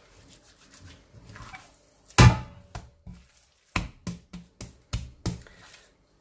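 Wet hands slapping and pressing a soft, sticky whole-wheat dough in a glazed ceramic dish. A loud thump comes about two seconds in, then a quick run of six or so sharp slaps.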